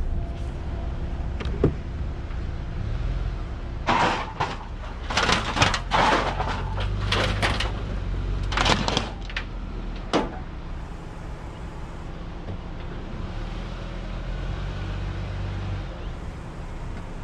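Low, steady engine hum with a cluster of knocks and clanks about four to ten seconds in: a car door being opened and shut and the driver stepping about on the car hauler's metal deck.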